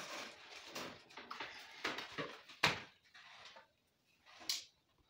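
Electrical cables being handled and drawn through conduit at a wall box: irregular scraping and rustling, with a sharp knock about two and a half seconds in and another near the end.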